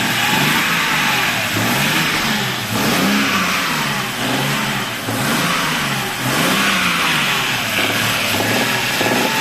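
BMW N52 3.0-litre straight-six engine revved up and falling back several times in a row. The owner hears a knock as the revs rise and as they drop.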